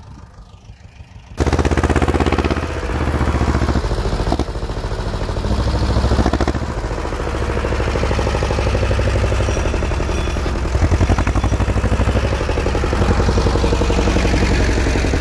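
Ursus C-330 tractor's two-cylinder diesel engine running steadily under load as it pulls a subsoiler through the field, with a low, pulsing note. The engine sound starts abruptly about a second and a half in, after a quiet start.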